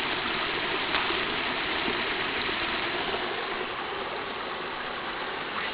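Small creek waterfall, water rushing and splashing steadily.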